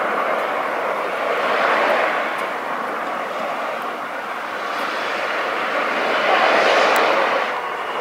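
Small waves breaking and washing up a sandy beach: a steady rushing hiss that swells twice, about two seconds in and again near the end.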